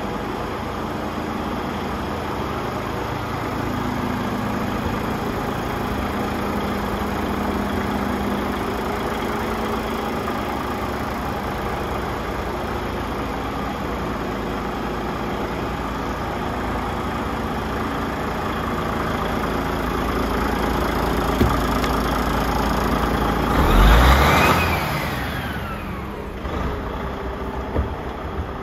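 A DAF CF510's Paccar 510 bhp six-cylinder diesel idling steadily. Near the end it is revved once, its pitch rising and then falling back, with a couple of short knocks around it.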